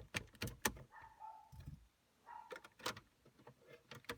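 Scattered plastic clicks and knocks of a car stereo head unit and its wire connectors being handled and pushed back into place in the dashboard, with a short rattle about a second in and again near three seconds.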